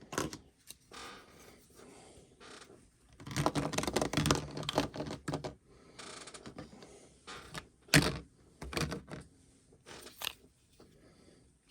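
Handling noise from plastic utility knives and their packaging: scattered clicks and rattles, a stretch of rustling a few seconds in, and a few sharp clicks later as the knives are put down.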